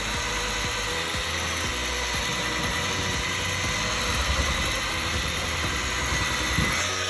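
Handheld electric power tool running steadily with a whine, typical of a rotary polisher or sander working on a boat's gel coat.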